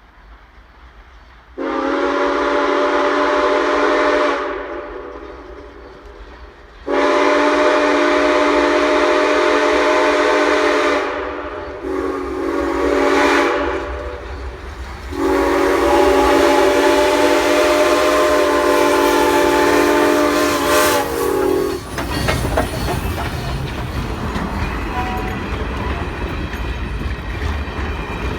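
Locomotive 7470 sounding the grade-crossing signal on its whistle: two long blasts, a short one and a final long one, each a steady chord. Then the train rumbles past with wheels clicking over the rail joints.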